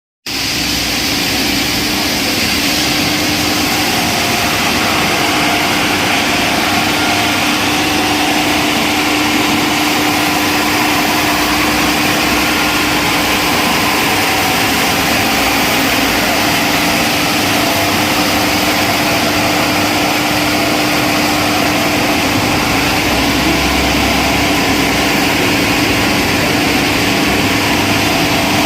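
630 mm double-face wide belt wood sander running steadily: a constant hum with one steady tone under a broad hiss from the sanding belts.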